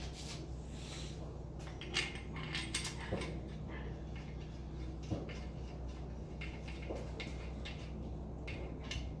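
Scattered light metallic clinks and knocks of steel engine parts being handled: main bearing caps and their bolts being fitted to a 5.3L LS engine block during bottom-end assembly. A steady low hum lies under them.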